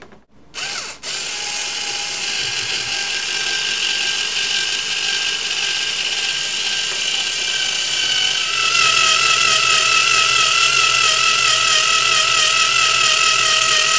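Small battery-powered Black & Decker screwdriver-drill with a 5/32-inch bit drilling through the sole of a hockey boot. It gives a brief blip on the trigger, then a steady, wavering whine. About halfway through, the whine grows louder and drops slightly in pitch as the bit bites into the sole.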